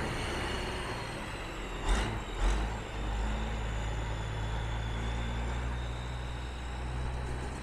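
1989 Kenworth T800 semi truck's diesel engine running steadily as the truck drives off, with two short, sharp hisses of air about two seconds in, half a second apart.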